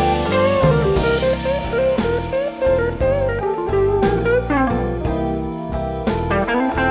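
Blues song in an instrumental passage between sung verses: a lead guitar plays bending, sliding notes over bass and drums.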